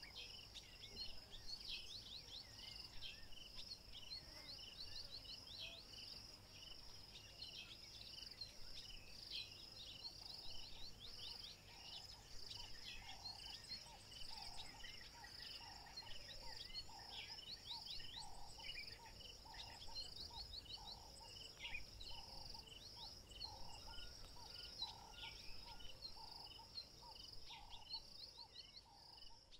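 Faint outdoor insect chorus of crickets: a steady high chirring with many short chirping calls over it. From about halfway, a lower call repeats roughly once a second.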